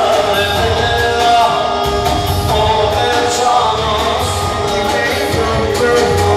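Loud dance music with singing over a steady beat.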